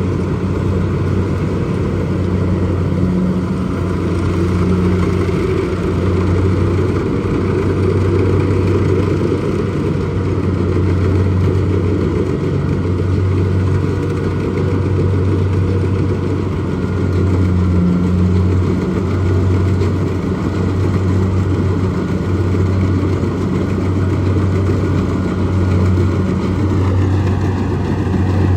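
Kubota DC70 rice combine harvester's diesel engine running steadily at a constant speed, with a loud, even low drone.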